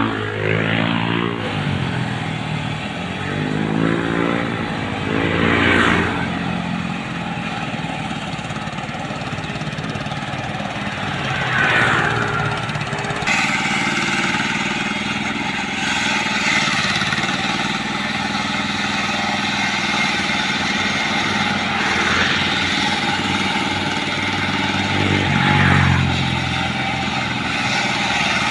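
City road traffic: vehicle engines going by, some changing pitch as they pass in the first few seconds, over a steady traffic hum.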